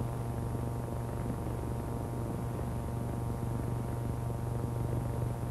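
Steady low electrical hum with background hiss on an old film soundtrack, unchanging throughout, with no other sound.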